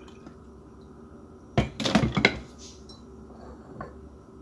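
A few sharp clinks and knocks of a coffee pot and ceramic mug on a stone countertop, bunched together about a second and a half in, with one small tick near the end, over a faint steady hum.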